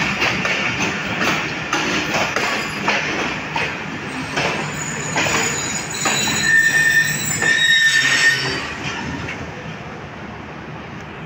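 Passenger train coaches rolling slowly past, the wheels clacking over rail joints, then a high steel-on-steel squeal about six to eight seconds in as the arriving train slows. The sound fades near the end.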